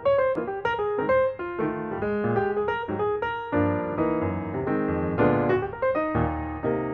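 Background piano music, a quick stream of notes.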